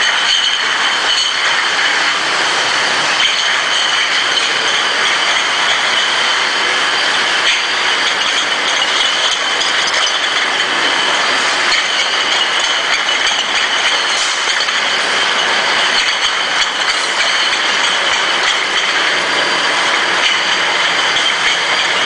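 Glass bottle washing machine and its conveyor running: a continuous mechanical din with a steady high whine, and glass bottles clinking as they move along the line.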